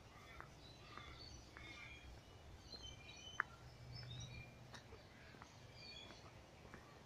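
Faint birdsong: many short chirps from several small birds, over a low background rumble, with one sharp click about three and a half seconds in.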